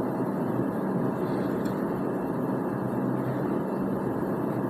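A steady, even hum of background noise with no clicks or strokes in it.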